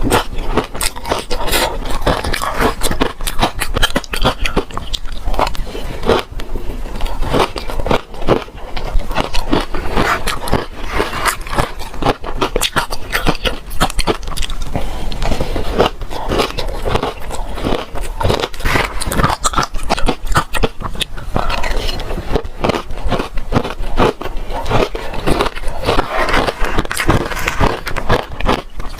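Close-miked biting and chewing of frozen matcha ice: continuous, irregular crunching and crackling as the ice is bitten and broken up.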